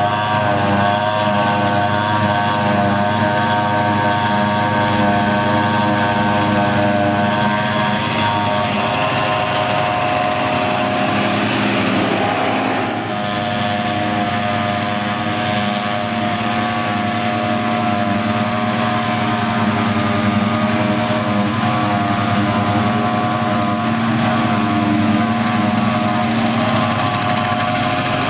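John Deere self-propelled forage harvester chopping grass silage with a tractor and trailer running alongside: a steady, loud engine drone with a constant high whine from the chopping and blowing. About halfway through the sound dips briefly, then carries on at a slightly different pitch.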